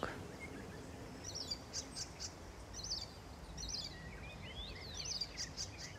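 Small birds chirping in short, scattered calls over faint outdoor background noise.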